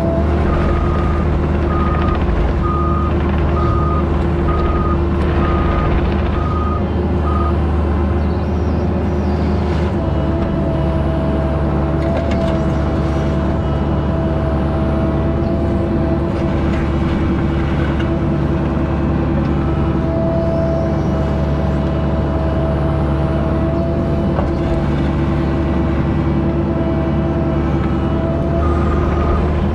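Diesel engine of a piece of heavy earthmoving equipment running steadily close by. A backup alarm beeps about once a second for the first seven seconds or so, and starts again near the end.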